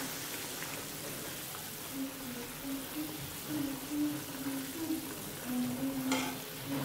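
Water with fresh peas boiling hard in a kadai, a steady bubbling hiss, as a spatula stirs through it; this is the boil that softens the peas before the semolina goes in. Faint low notes, like a slow melody, run underneath from about two seconds in.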